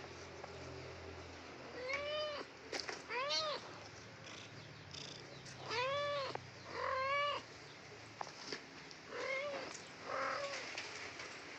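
Kitten meowing six times in three pairs, each meow high-pitched, rising and then falling in pitch.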